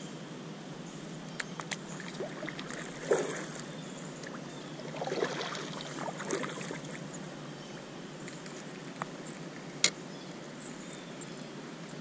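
Light water sloshing and trickling around a plastic kayak hull, with a few sharp clicks and knocks of gear on the boat, the sharpest about ten seconds in.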